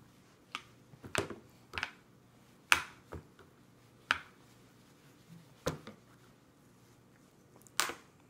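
A toddler's hands and spoon knocking against a bowl and high-chair tray: about eight sharp, irregular taps and clacks, the loudest a little under three seconds in and again about four seconds in.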